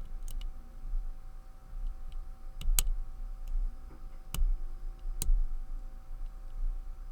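Lever pick and tension wrench clicking inside a Walsall 2000 five-lever padlock as the levers are nudged up and down under tension: a few scattered sharp clicks, the loudest about three, four and a half and five seconds in.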